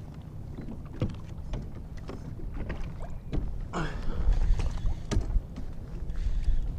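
Wind rumbling on the microphone and water lapping against a plastic fishing kayak, with a few sharp knocks and clicks from handling the rod and spinning reel while a hooked fish is reeled in.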